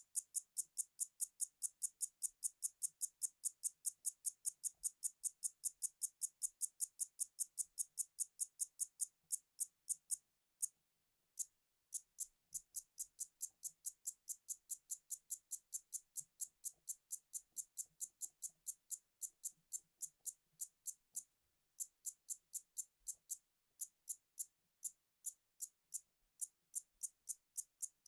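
A fast, even train of sharp high-pitched clicks, about three to four a second, stopping briefly twice before resuming.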